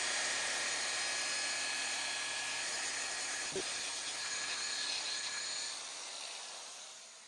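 Rotary polisher with a foam compounding pad running as it buffs heavy-cut compound into clear-coated paint, a steady whir with a thin high whine, and one light click about three and a half seconds in. The motor winds down near the end.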